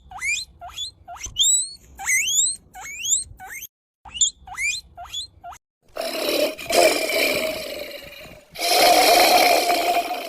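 Animal calls: a run of quick rising chirps, about three a second, then two long harsh calls near the end.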